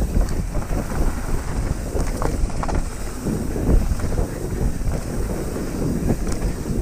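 Wind buffeting the microphone of a handlebar-mounted camera on a mountain bike riding fast downhill on a dirt trail, over a steady rumble with many quick rattles from the tyres and bike on the rough ground.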